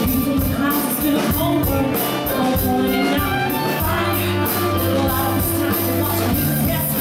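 Live band playing a song: a woman sings lead over sustained bass notes, guitar and drums keeping a steady beat on the cymbals.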